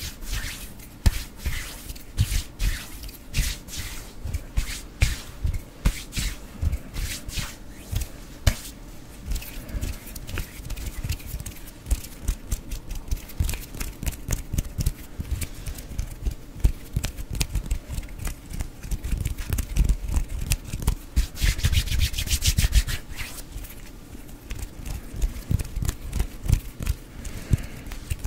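Hands rubbing together and swishing close to a microphone in quick, uneven strokes, with low thumps as they pass near it. There is a stretch of faster, louder rubbing about three-quarters of the way through.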